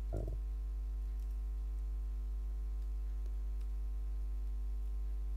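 Steady electrical mains hum with a few faint thin clicks. A short voice sound comes right at the start.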